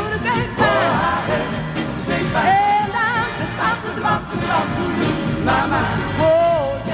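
Soul music: a singer's voice with vibrato over a band.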